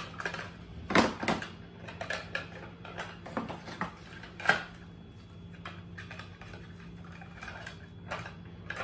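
Irregular clicks and clatter of a toy BB gun's hard plastic parts being handled and pushed together. Several sharp knocks come in the first half, then only faint handling noise.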